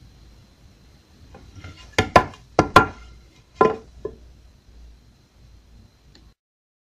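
A run of sharp wooden knocks, about five, bunched together about two to four seconds in, with a softer one just after. Then the sound cuts out.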